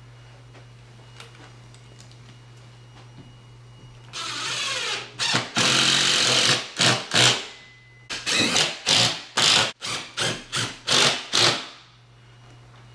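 Cordless drill driving screws through a projector mount bracket into the ceiling: after a few quiet seconds, one longer run with the motor rising in pitch, then a string of short trigger bursts as the screws are driven home.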